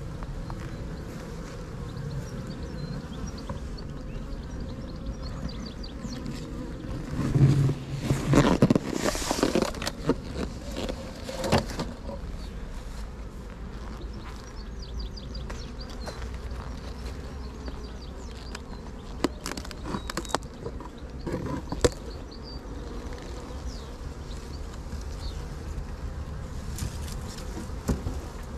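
Honeybees buzzing around an opened hive, a steady hum throughout. Wooden knocks and scrapes as the hive roof and then the crown board are lifted off, loudest about a third of the way in, with a few sharp knocks about two thirds of the way in.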